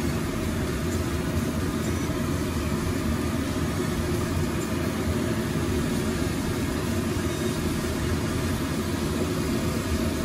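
Chicken pieces frying in oil and masala in a steel pot on raised heat, under a steady low rumble.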